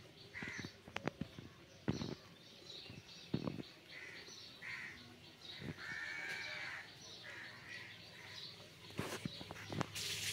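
Animal calls: several short calls and one longer, wavering call about six seconds in. Scattered soft knocks and taps come with it.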